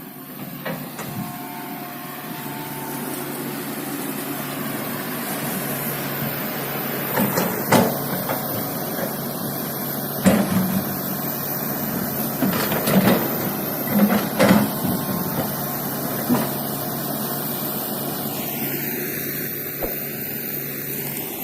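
Excavator's diesel engine running steadily, with irregular clanks and knocks from the machine at work.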